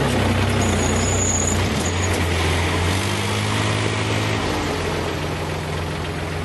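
Yanmar BV25 excavator's diesel engine running steadily under working load, its note shifting a little a couple of times.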